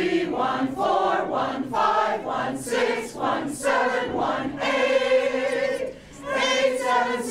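Mixed-voice choir singing an interval warm-up, the scale-degree numbers sung one per note. There is one long held note about two-thirds of the way through and a brief break near the end.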